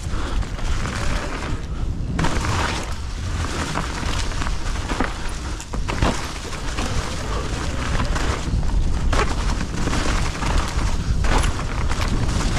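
Wind buffeting the microphone as a mountain bike rides down a rough trail, with the bike clattering and several sharp knocks over the terrain.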